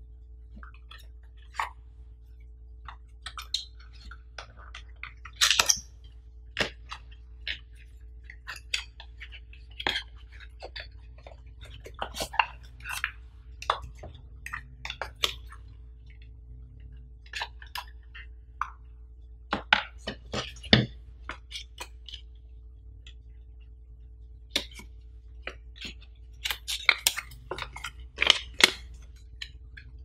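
Hands opening and unpacking a small paperboard box: irregular scrapes, taps and clicks of cardboard and paper being handled and set down on a tabletop, busier near the end, over a faint steady hum.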